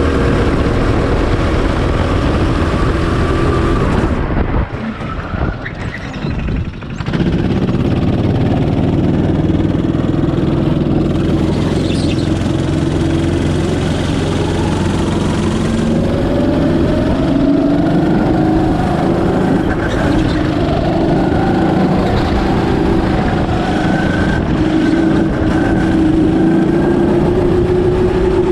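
Birel N35 go-kart's engine running hard through a lap, heard onboard. It drops off for a couple of seconds about four and a half seconds in, then climbs in pitch again as it picks up speed, with more rising pulls further on.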